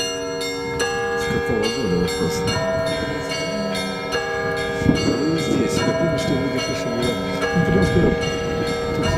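Orthodox church bells ringing: several bells of different pitches struck in steady succession, each strike ringing on under the next.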